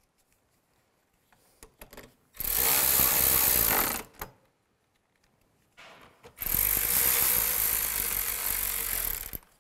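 Cordless power driver spinning in the door panel's screws: two steady runs, one of about a second and a half, then a longer one of about three seconds.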